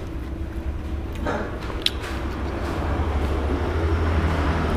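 Low rumble of a passing road vehicle that grows louder toward the end, with one sharp click about two seconds in.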